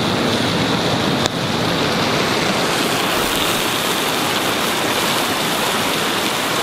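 Steaks sizzling in a cast-iron skillet over a campfire: a steady, dense frying hiss, with one sharp tick about a second in.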